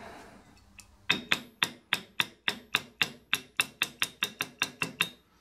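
Small hammer tapping a timing sprocket's hub to drive it onto the nose of a camshaft: about seventeen quick, even taps, roughly four a second, starting about a second in, each with a short metallic ring. The sprocket is a tight fit on the shaft.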